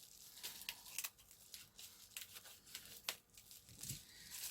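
Scissors snipping open plastic packaging, with scattered crinkles and small clicks and a sharper click about three seconds in.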